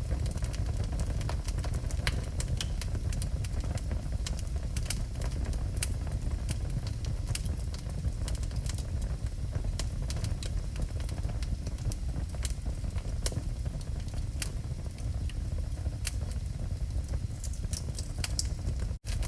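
Wood fire burning in a fireplace: a steady low rumble of the flames with frequent sharp crackles and pops from the burning logs, broken by a split-second gap near the end.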